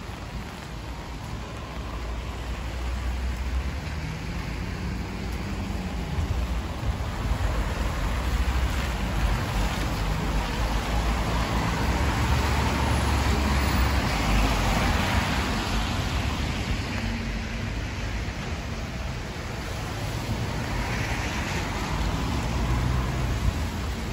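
A car passing on a wet road in the rain: tyre hiss and engine noise swell to a peak about halfway through, then fade, with a smaller swell near the end, over steady rainfall.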